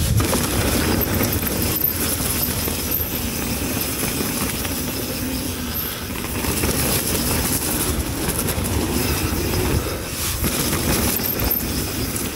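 Mountain bike ridden down a muddy, sticky trail: a steady rattle and rumble of tyres, chain and suspension over the ground.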